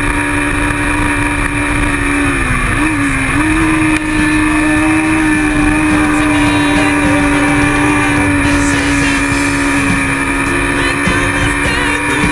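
Kawasaki Ninja 650R's parallel-twin engine running hard at high revs, heard from a camera mounted on the bike, with wind noise over the microphone. The engine note dips and wavers about two and a half seconds in, then holds steady.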